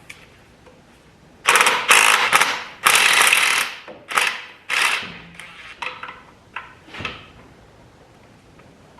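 Hand ratchet wrench clicking as it is swung back and forth on a stubborn engine mount bolt. It comes in several loud raspy strokes in the first half, then fainter, scattered clicks.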